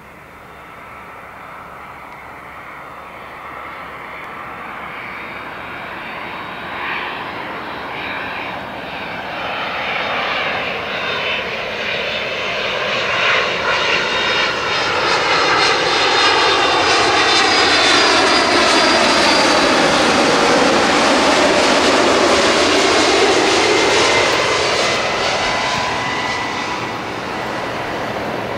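Boeing 767-300 twin-engine jet airliner flying past on its landing approach, its engines at approach power. The noise builds steadily, is loudest from about two-thirds of the way in, then fades as it passes, with a slowly sweeping shift in tone as it goes by.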